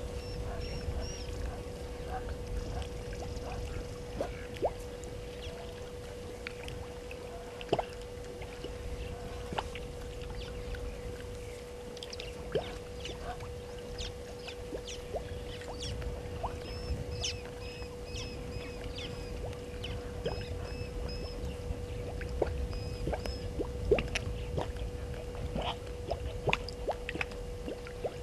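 Outdoor waterhole ambience: a steady low hum and a low wind rumble, with a bird calling in quick runs of short high notes at the start and again about two-thirds of the way in, and scattered sharp clicks.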